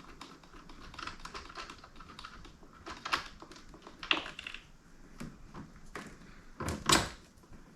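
A 12mm wrench working on a UTV's battery terminals: a run of quick light metallic clicks, then louder knocks and clunks about three, four and seven seconds in, the last the loudest.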